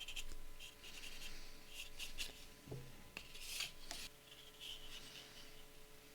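Faint, irregular scraping and rubbing strokes of hand work on a small plastic model part, with one soft knock near the middle.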